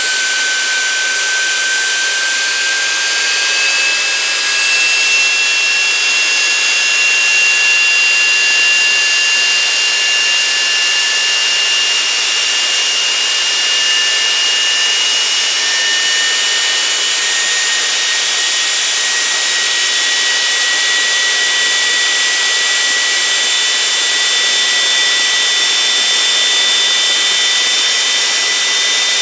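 Rolls-Royce Marine Spey gas turbine running on a test stand: a loud, steady rush with high whining tones that rise slowly in pitch throughout.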